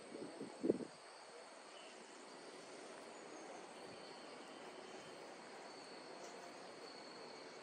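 Faint outdoor ambience: a low even background hiss with a thin, steady high-pitched trill, and a brief louder sound in the first second.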